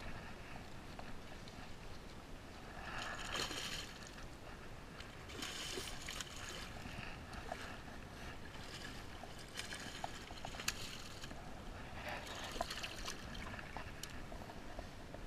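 A hooked pink salmon splashing at the surface close to a rocky riverbank as it is reeled in on a spinning rod. The splashing comes in several bursts, each about a second long, with a few sharp ticks.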